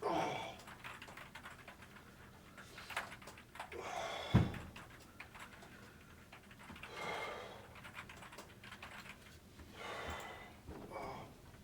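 Typing on a computer keyboard, with a few heavy breaths about a second long every three seconds or so. A single dull thump comes about four seconds in.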